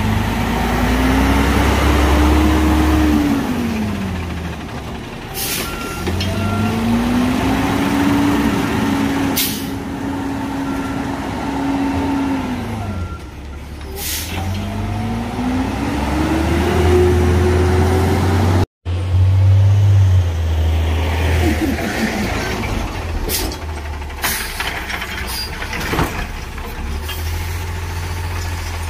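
Automated side-loader garbage truck working the curb: its diesel engine revs up, holds and drops back three times, with sharp air-brake hisses in between. After a short dropout, the engine settles to a lower, steadier note, with a few sharp hisses and clunks.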